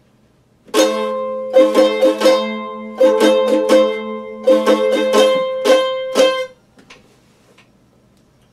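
Mandolin strummed in a rhythmic pattern, the same chord struck again and again in quick groups for about six seconds, then letting go; a couple of faint string sounds follow.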